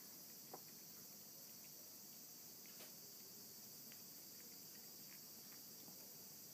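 A cat eating chunky wet canned cat food: faint, scattered clicks of chewing and licking, a few seconds apart, over a steady high hiss.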